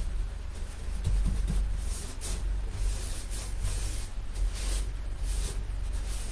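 Paintbrush loaded with chalk paint stroking up and down a wooden cabinet door, a dry scratchy swish with each stroke, about one or two a second, over a steady low hum. The paint is starting to dry, so the brush drags on the surface.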